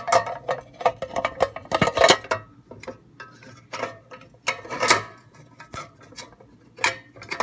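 Metal coin box of a Western Electric 1D2 payphone being handled and put back together: a string of metallic clanks and clicks, busiest in the first two seconds, with louder knocks about the middle and near the end.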